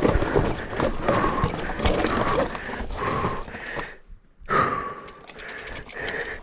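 A mountain-bike rider panting hard, with short gasping breaths about twice a second, over knocks and rattle from the bike on rough trail. The sound drops out briefly past the middle, and a burst of rapid ticking comes near the end.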